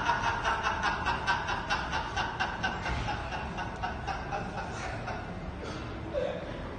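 Hard laughter in quick, breathy pulses, about four or five a second, that slowly die down and fade out near the end.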